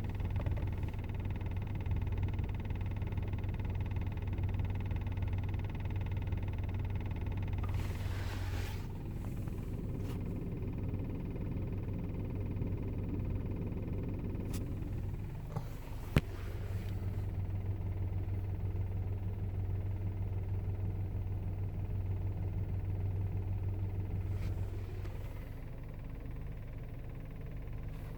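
Volkswagen Golf Mk5 GTI's 2.0 TFSI four-cylinder engine running steadily, with the knocking noise its owner is asking about at 200,000 km. The tone shifts about a third of the way in and again near the end, and there is one sharp click about halfway through.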